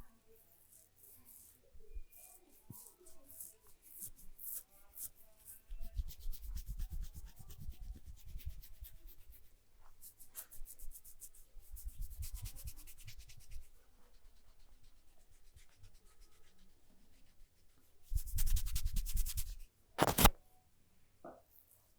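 Hands rubbing and stroking in a massage, quick brisk rubbing strokes that come in several spells with quieter gaps between. Near the end there is one short, loud burst.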